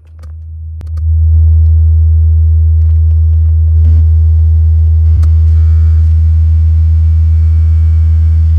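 Belva 12-inch subwoofer playing a 40 Hz test tone driven at about 250 watts for an RMS power test. It swells up over the first second, then holds a loud, steady deep hum.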